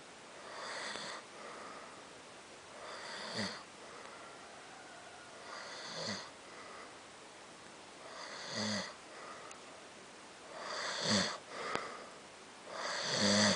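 A sleeping person snoring, about one breath every two and a half seconds, each ending in a low rattling buzz.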